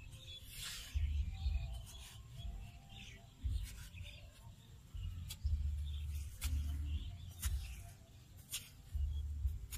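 A long-handled hoe chopping into hard, stony clay soil, its dull strikes landing roughly once a second. A low rumble comes and goes underneath.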